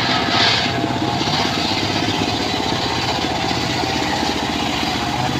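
Circular saw rig running steadily with a rapid, even pulsing drone; a brighter hiss during the first second fades back to the plain running sound.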